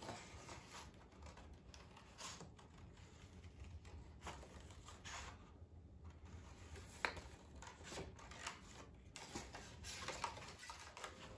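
Scissors snipping through construction paper, faint irregular snips with the paper rustling as it is turned around the hand-shaped outline.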